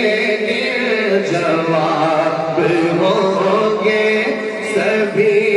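A man singing a naat, an Urdu devotional poem in praise of the Prophet, in long held notes that waver and slide.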